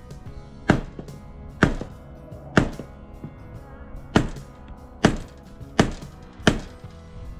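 Hammer blows on the metal door frame of an old Airstream trailer: a hammer strikes a second hammer held against the frame, seven sharp knocks about a second apart. The frame is being bent back so the door will close.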